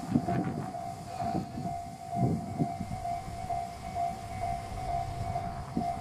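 Railway level-crossing warning bell ringing, one repeated electronic ding at an even pace of about two strokes a second, with uneven low rumbling beneath it.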